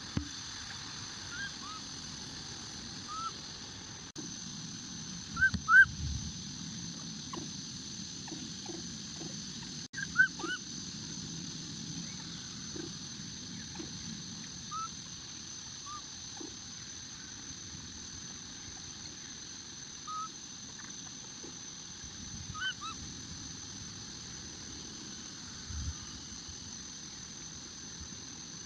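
Baby macaque giving short, high-pitched squeaky calls in scattered bursts, loudest about six and ten seconds in, over a steady high-pitched drone.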